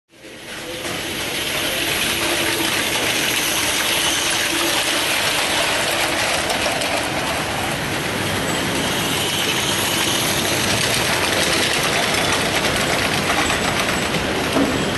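Gauge 3 live steam model train, a spirit-fired locomotive modelled on a Prussian P4 pulling tinplate coaches, running on metal tinplate track: a steady metallic rattling with a fast fine clicking. It fades in over the first couple of seconds, then holds steady.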